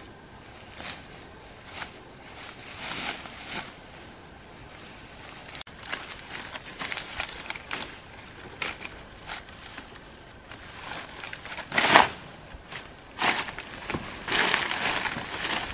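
Irregular crunching and rustling, a scattered run of short noisy bursts, with a sharp loud one about twelve seconds in and a longer stretch near the end.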